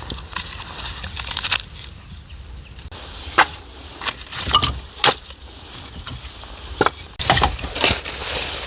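Irregular sharp knocks and crunching noises, loudest about a third of the way in and in a dense cluster near the end, over a steady hiss.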